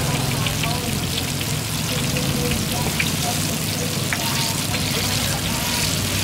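Battered fritters deep-frying in a large basin of hot oil: a dense, steady sizzle full of small crackles, with a low hum underneath.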